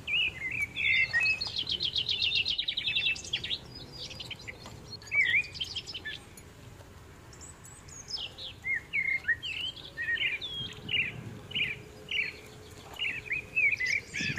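Small birds singing: a fast, high trill about a second in, then a string of short repeated chirps, two or three a second, through the second half.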